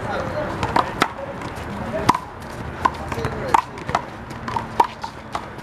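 One-wall handball rally: sharp slaps of hands hitting the rubber ball and the ball smacking the wall, coming irregularly about once a second, with voices murmuring underneath.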